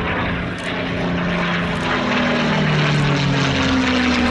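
P-51 Mustang's Packard Merlin V-12 engine and propeller in a display pass, growing louder over the first two seconds, with the engine note sliding lower as the aircraft goes by.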